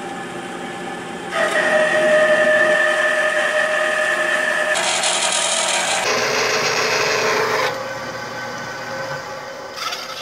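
Horizontal metal-cutting bandsaw blade running through a steel bar clamped in its vise: a steady rasp with ringing whine tones that get louder about a second in and shift in pitch a few times as the cut goes on.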